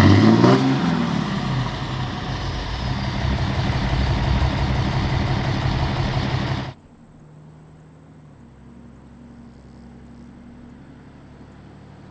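2017 Ram 2500's 6.7 L Cummins inline-six turbo-diesel, fitted with a 5-inch Karnage performance diesel muffler. A rev drops back at the start and the engine then runs steadily at idle. About seven seconds in it cuts off abruptly to a faint, distant low engine hum.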